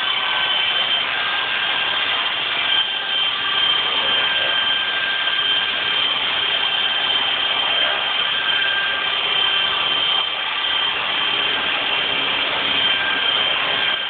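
Titan 450 RC helicopter hovering: a steady high whine over the rush of the spinning rotor, holding level throughout.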